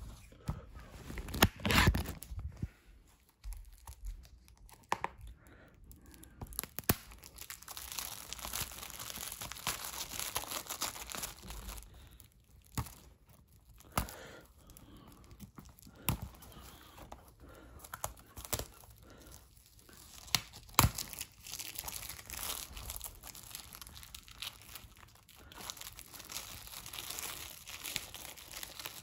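Cellophane shrink wrap being torn and peeled off a plastic Blu-ray case, crinkling, with sharp clicks now and then.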